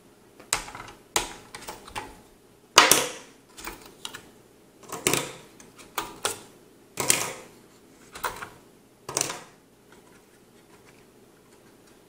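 RAM modules being removed from a motherboard: about ten sharp plastic clicks and clacks at uneven gaps as the DIMM slot latches are snapped open and the sticks pulled out and set down. The loudest click comes about three seconds in, and the clicking stops a couple of seconds before the end.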